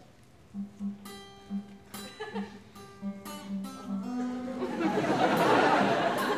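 Acoustic guitar strummed in a few separate chords, the notes left ringing. A little past halfway the sound of an audience laughing swells up and grows louder over it.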